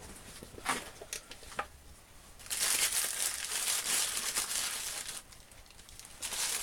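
Packing wrap crinkling and rustling as a parcel is unwrapped by hand: a few sharp crackles, then about two and a half seconds of dense crinkling, and more rustling near the end.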